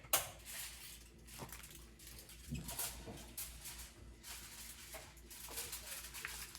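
A sharp knock just after the start, then scattered rustling, scraping and light clatter of things being handled while cleaning a kitchen refrigerator.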